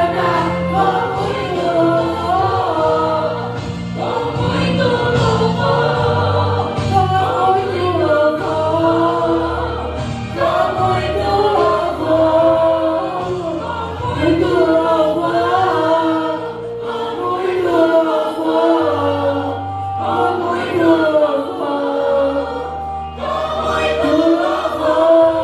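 Portuguese gospel worship song: voices singing over a band with a steady bass line.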